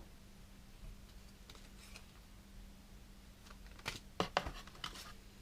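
Hands handling small packaged items and paper from a subscription tackle box: faint rustling, then a quick cluster of clicks and crinkles about four seconds in, over a low steady hum.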